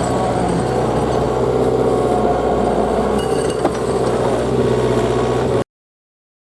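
Heavy-equipment diesel engine running steadily, with scattered metallic clinks. It cuts off suddenly near the end.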